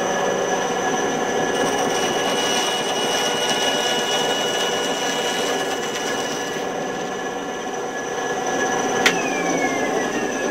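Harbor Freight 9-inch benchtop band saw running with a steady whine as its blade cuts through 1/4-inch MDF, adding a hiss for the first several seconds. About nine seconds in there is a sharp click, and the whine falls away as the saw is switched off and spins down.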